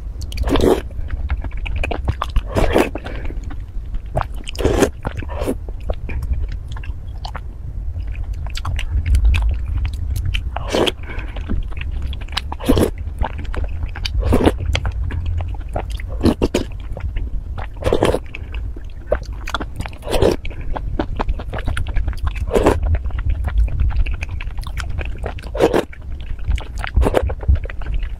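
Close-miked biting and chewing of a dessert, with separate mouthfuls every second or two over a steady low rumble.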